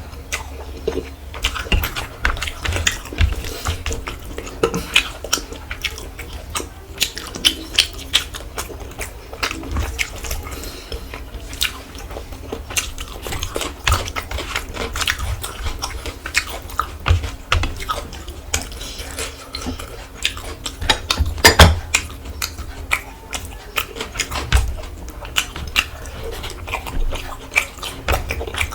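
Close-miked chewing and mouth sounds of a person eating rice and curry: a busy, uneven run of short wet smacks and clicks, with a louder cluster a little past two-thirds of the way through.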